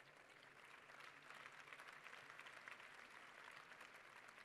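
Faint applause from a large audience, many hands clapping at once, swelling slightly about a second in.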